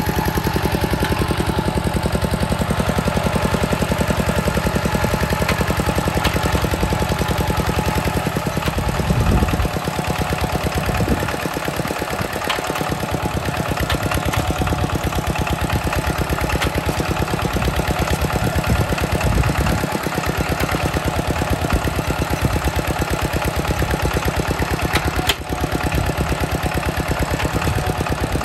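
Kubota two-wheel walking tractor's single-cylinder diesel engine running steadily under load while pulling a plough through wet paddy soil, with a rapid, even diesel beat.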